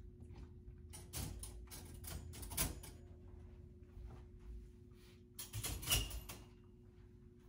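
Metal clicks and rattles from wire dog crates as their doors are handled and latched, coming in two clusters, about a second in and again near the end, over a faint steady hum.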